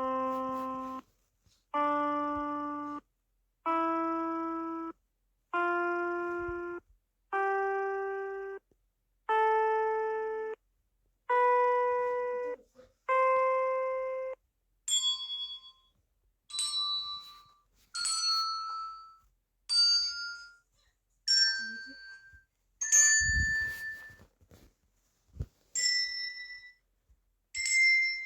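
A series of separate short sound-effect clips with silent gaps between them: first eight sustained musical tones, each about a second long, stepping upward in pitch one after another, then about a dozen shorter, higher ringing dings.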